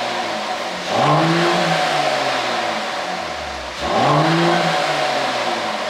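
Mercedes-Benz CLS450's turbocharged inline-six, running a pop-and-crackle exhaust tune, revved twice while stationary: the revs climb sharply about a second in and again near four seconds, each time sinking back slowly toward idle.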